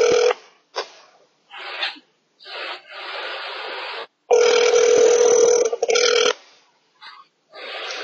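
A girl snoring, heard over a video-call connection: a loud, rasping snore of about two seconds begins about four seconds in, with softer snores before it and the sound cutting out to silence between them.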